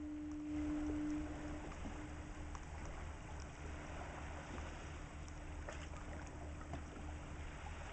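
Swirling tidal current around shoreline rocks, a steady rushing wash with a low rumble beneath it. A faint steady hum, loudest in the first second or so, fades away over the following seconds.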